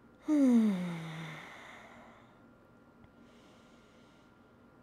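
A woman's deep breath: a voiced sigh on the exhale, falling in pitch and trailing off into breath. A fainter breath follows about three seconds in.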